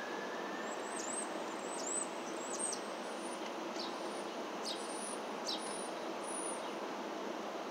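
Steady hum of city traffic and street noise, with a small bird's very high, thin chirps in short runs, about a second in and again around five to six seconds in.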